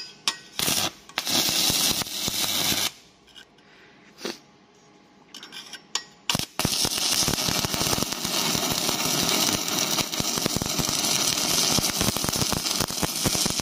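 Stick-welding arc from a DC inverter welding machine set to about 211 amps: a couple of short crackling bursts as the electrode is struck, then from about six and a half seconds in a steady crackling arc as the bead runs. The machine is welding normally again now that its current-setting variable resistor has been adjusted.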